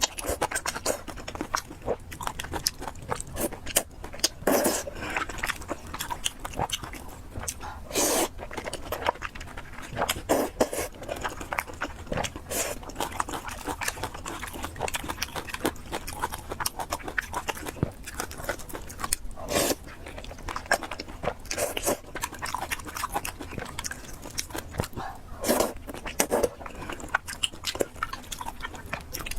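Close-up eating sounds of a person chewing fried noodles and pork, with many irregular wet mouth clicks and smacks.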